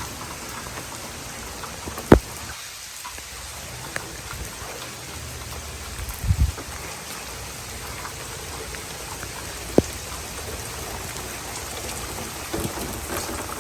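Steady rain falling, with a few sharp clicks and a short low thump about six seconds in.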